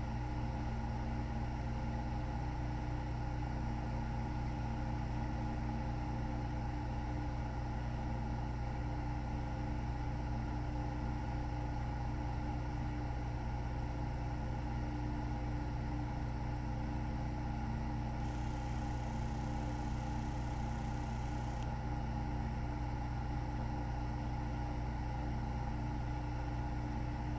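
Steady low machine hum made of several fixed tones, unchanging in level, with a faint hiss that comes in for about three seconds partway through.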